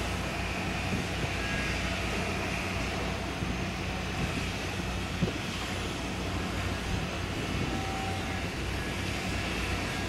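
Marine engines running with a steady low drone, from the berthing ship and the small launches beside it. There is a brief knock about five seconds in.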